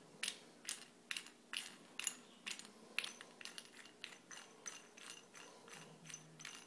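Plastic mounting nut being spun by hand up the threaded shank of a reverse osmosis faucet, giving a run of light clicks at about two to three a second as the fingers turn it.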